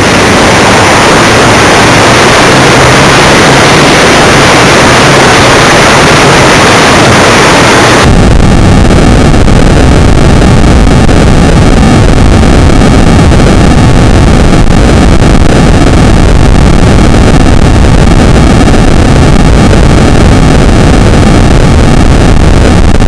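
Wind rushing over the microphone of an RC model airplane's onboard camera, loud and overloaded, as the plane glides in low with its motor throttled back. About eight seconds in the sound turns abruptly to a rougher, lower rumble as the plane reaches the ground and moves across rough mown grass.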